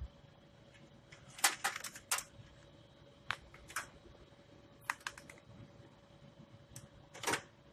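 Scattered light clicks and taps in small clusters, a dozen or so, from a cable and its plastic connector being handled and worked through a hole in the ice machine.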